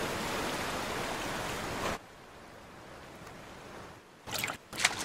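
A rushing-water sound effect, a steady wash like a stream or surf. It drops suddenly to a fainter wash about two seconds in. Two short, loud noisy bursts follow near the end.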